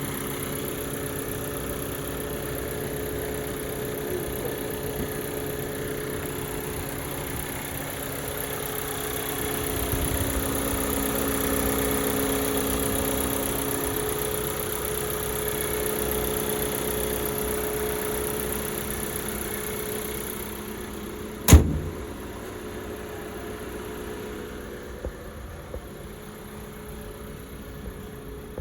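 2019 Audi A4's engine idling steadily with a steady hum and whine, a little louder in the middle. About three-quarters of the way through there is a single loud thump, after which the running sound is quieter.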